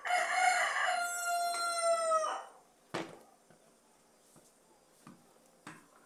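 A rooster crowing once: one long call of about two and a half seconds that dips slightly in pitch at its end. Two short clicks follow, one about three seconds in and one near the end.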